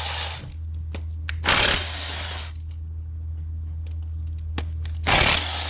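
Hand-tool work on a partly disassembled diesel engine: scattered metal clicks and three short rushing, scraping noises over a steady low hum.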